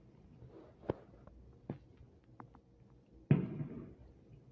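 Consumer aerial fireworks going off: two sharp pops in the first two seconds, then a loud bang of a shell bursting a little past three seconds in, trailing off.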